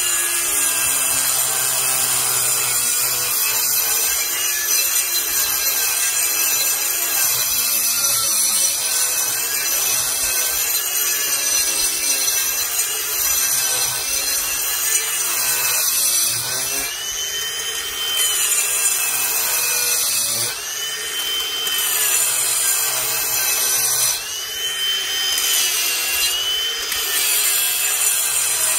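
Ryobi P423 brushless cordless angle grinder with a diamond wheel grinding down concrete, running continuously; its motor pitch sags several times as the wheel is pressed harder into the slab.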